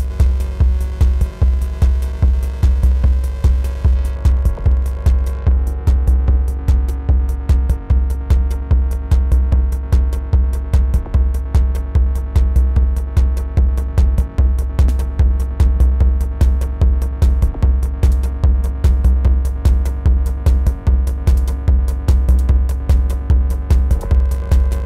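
Techno played live on hardware drum machines and synthesizers, including Korg Volca groove boxes: a steady four-on-the-floor kick about twice a second under sharp percussion ticks and held synth tones. About four to five seconds in, the bright top end is filtered away.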